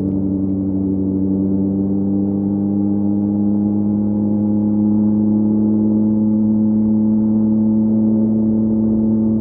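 2023 Yamaha MT-09's three-cylinder engine through a LeoVince LV Race exhaust, running at a steady cruise, its pitch creeping up slightly.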